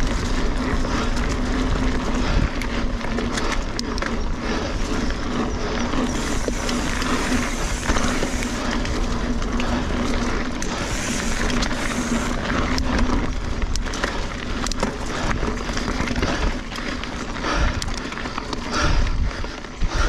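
Hardtail mountain bike, a 2017 Kona Honzo, ridden along a dirt singletrack: tyres rolling over dirt and leaves, with frequent rattles and knocks as it goes over bumps. Wind rumbles on the chest-mounted camera's microphone.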